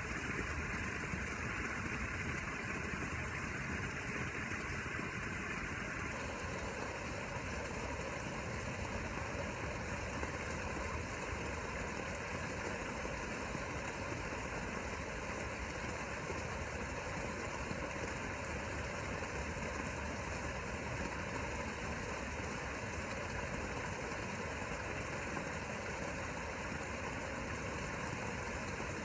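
Swimming-pool filter pump running, a steady, even mechanical noise with no changes in pitch or level, driving the automatic pool cleaner.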